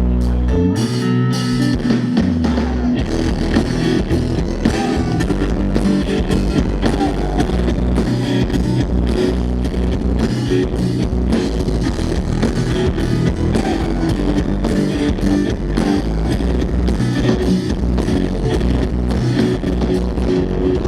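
Rock band playing live on electric guitar, bass guitar and drum kit, with a steady driving beat. A held low chord opens it, and the full band comes in about a second in.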